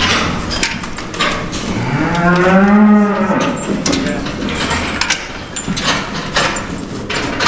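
One of the penned cattle moos once, a long call that rises in pitch and then holds, starting about two seconds in. Short knocks and clanks sound here and there around it.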